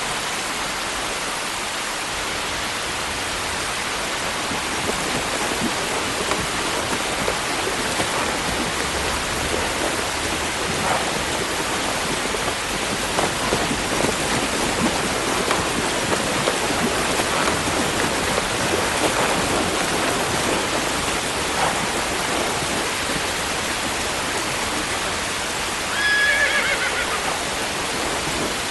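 Steady rain falling, with a horse whinnying once near the end.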